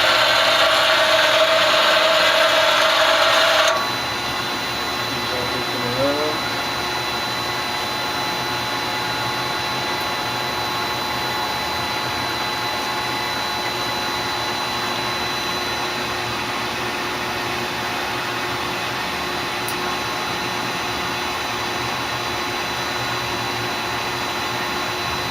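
Live (cross-driven) tool spindles of a Tsugami BS-20BII CNC Swiss lathe running at 2,000 RPM, a steady whine that cuts off about four seconds in. The idling machine's quieter steady hum follows.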